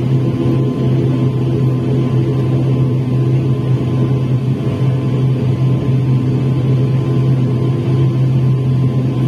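ATR 72 turboprop engines heard from inside the cabin as the plane taxis: a loud, steady drone with a deep hum and a thin steady whine above it.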